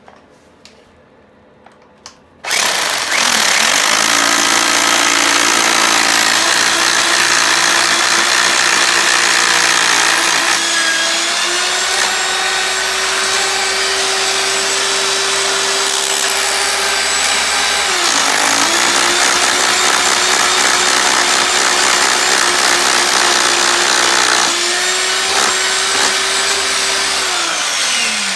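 Hammer drill with a 3/16-inch bit running under load, drilling pilot holes for concrete screws through a toilet flange. It starts a couple of seconds in, eases off and speeds up again briefly about two-thirds through, and spins down near the end.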